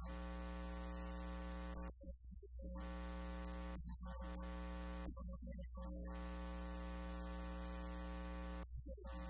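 A steady electrical buzz over a low mains hum: one unchanging pitch with many overtones that drops out briefly three or four times.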